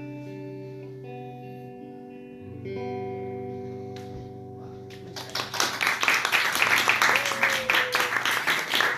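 Electric guitar letting its final chords ring out, with a fresh chord struck about two and a half seconds in. About five seconds in, a small audience breaks into applause, which is louder than the guitar.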